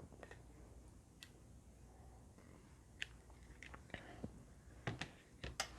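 Faint, scattered clicks and light taps from handling a phone screen assembly on a workbench, irregular and more frequent in the second half.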